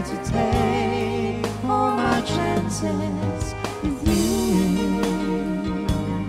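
Live band music: a woman and a man singing a duet into microphones over guitar and violin accompaniment.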